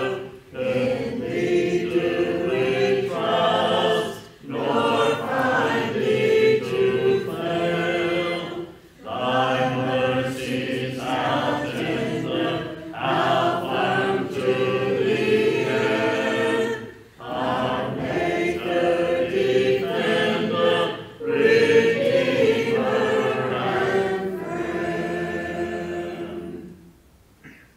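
Congregation singing a hymn a cappella, with no instruments, in phrases broken by short pauses for breath; the last note dies away near the end.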